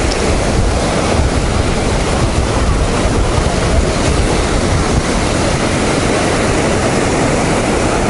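Storm surf breaking steadily on a sandy beach, a continuous rush of waves, with wind buffeting the microphone in a low rumble.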